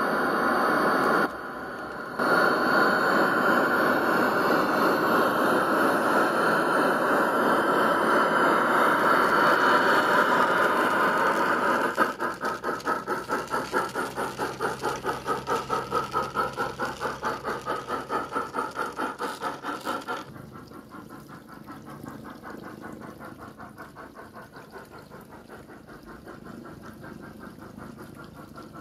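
MyLocosound steam sound card in a Piko BR 24 G-scale locomotive, playing through the loco's speaker. A loud steady steam hiss is followed, about twelve seconds in, by rhythmic chuffing at about four to five beats a second as the train pulls away. The chuffing drops much quieter a little after twenty seconds.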